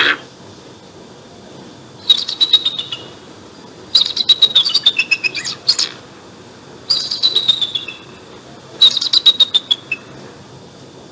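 Bald eagle calling: four bursts of rapid, high-pitched chittering notes, each series falling in pitch. The second burst, about four seconds in, is the longest.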